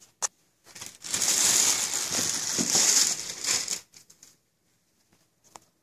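Clear plastic shopping bag crinkling and rustling as it is handled, for about three seconds starting about a second in, after a single short click.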